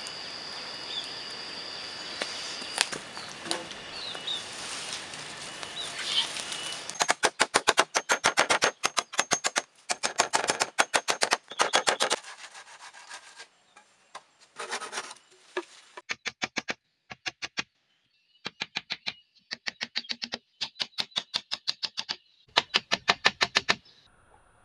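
A wood fire burning under a cooking pot, with birds chirping and an insect's steady high tone. After about seven seconds this gives way to a hatchet striking green bamboo poles in runs of quick, evenly spaced strokes. The runs come in short blocks of one to two seconds, broken by sudden gaps.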